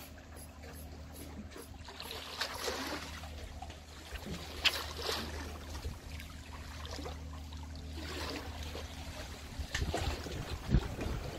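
Small waves lapping and sloshing among concrete tetrapods at the sea's edge, with a few sharp slaps of water, the loudest about halfway through and near the end, over a steady low hum.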